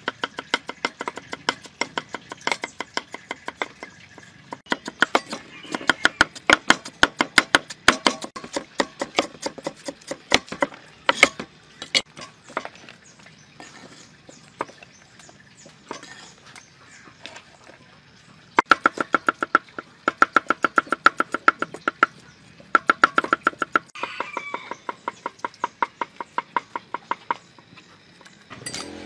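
Cleavers chopping rapidly on thick wooden chopping blocks: quick runs of sharp knocks, several a second, in bursts with short pauses, as ginger and garlic are cut.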